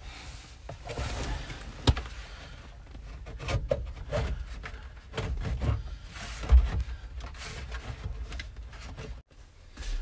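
Scattered clicks, knocks and rustling of hands working at the instrument cluster in a 1972 Chevy pickup's dash, with a louder low thump about six and a half seconds in.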